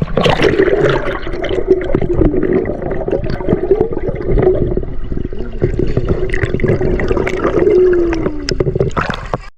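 Mountain stream water gurgling and rushing close to the microphone, steady throughout.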